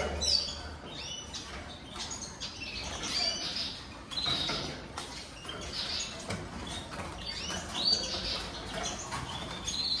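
Caged finches chirping: short, high calls with quick rises and falls in pitch, about one every second.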